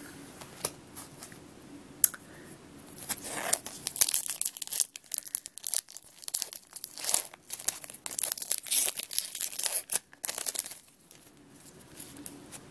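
Foil wrapper of a Pokémon trading card booster pack being torn open and crinkled by hand: a long run of rustling, crackling bursts, after a single sharp click about two seconds in.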